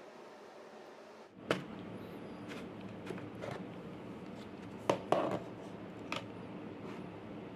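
Scattered light clicks and knocks of hard parts being handled, about seven over a few seconds, over a steady hiss that gets louder about a second in.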